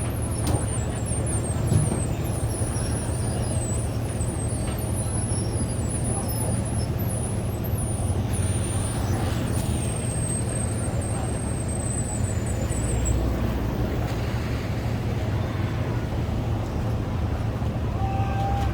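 Steady low drone of engines running, with a constant noise bed, and thin high-pitched chirping over roughly the first dozen seconds.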